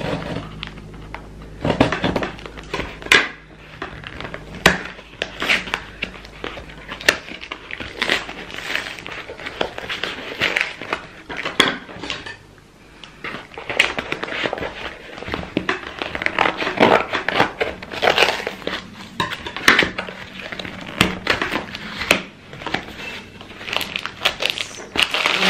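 Scissors cutting through packing tape on a cardboard box, then tape tearing and the cardboard and wrapping crinkling and rustling as the box is pulled open: many short, irregular scratchy strokes.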